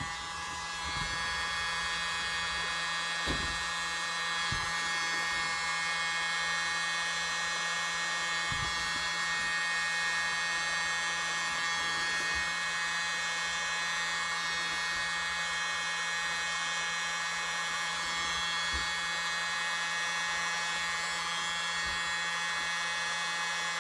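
Small electric air blower running steadily with a high motor whine, blowing wet pour paint outward on a tile to make a bloom.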